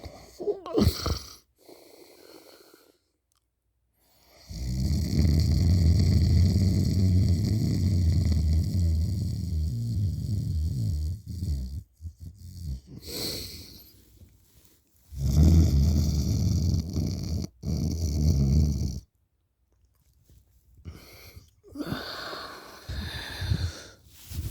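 A person asleep with their mouth hanging open, snoring super loud: two long snores, the first about seven seconds and the second about four, with shorter, quieter breaths between them.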